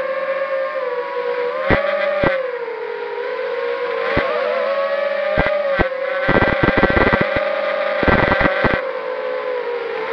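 ZMR250 racing quadcopter's brushless motors and three-blade props whining steadily, the pitch drifting up and down with throttle. Sharp crackling clicks come in bursts a little after the middle and again near the end.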